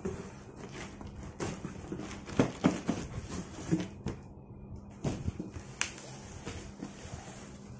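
Corrugated cardboard boxes being handled: an inner carton scraping against the outer shipping box as it is pulled out and set down, with rustling and a series of knocks, the loudest about two and a half seconds in.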